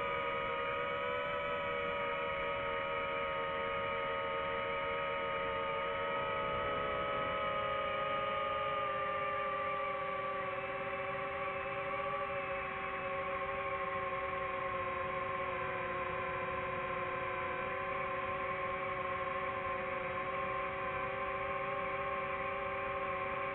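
DJI FPV drone's motors and propellers whining steadily as several held tones, heard from the drone itself. Some of the tones slide lower about a third of the way in as the throttle changes, then hold steady.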